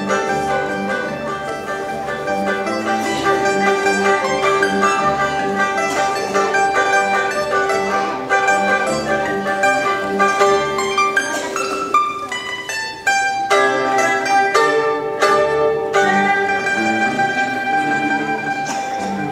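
Liuqin, a small Chinese mandolin, playing a tremolo melody over plucked Chinese-string accompaniment with a pulsing lower line. About two-thirds of the way through it changes to a run of separate, sharply plucked notes.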